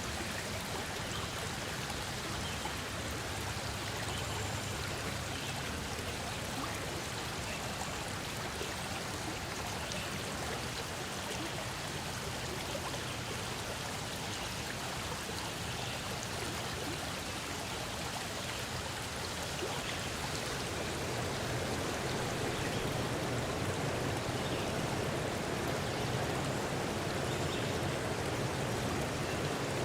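Steady rushing of running water, like a forest stream, growing somewhat louder about twenty seconds in.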